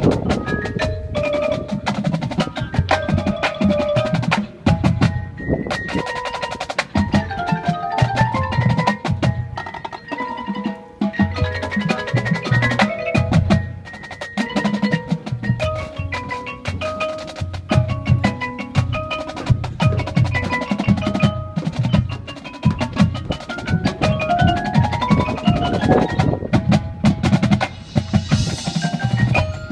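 Drumline percussion music: marching snare and bass drums play dense rhythms under marimbas and other keyboard mallet percussion, which play melodic lines with quick rising runs near the end.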